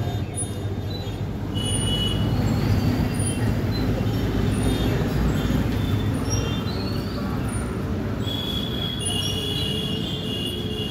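Chain-hung playground swing squealing in the rhythm of a child's swinging, with repeated high-pitched squeaks and a longer drawn-out squeal near the end, over a steady low outdoor rumble of traffic.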